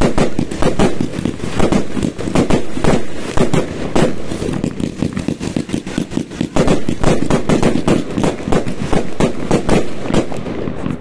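New Year's fireworks going off in a dense, continuous barrage: many sharp bangs and crackles overlapping several times a second, thinning a little near the end.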